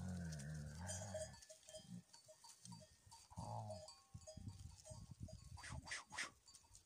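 Sheep bleating, with a light repeated bell tinkle between the calls.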